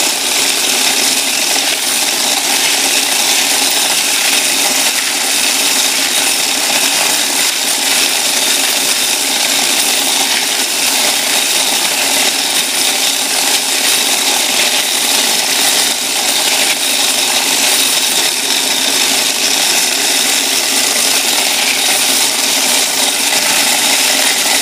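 Motorized coin counter running steadily with quarters rattling through it.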